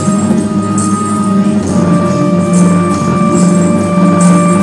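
Live electronic music from a laptop set: held synth tones that move to a new chord about two seconds in, over bright jingling percussion hits about twice a second.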